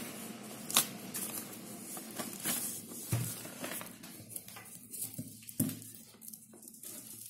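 Paper sheets rustling and a cardboard tube being shifted on a tabletop, with a few light knocks.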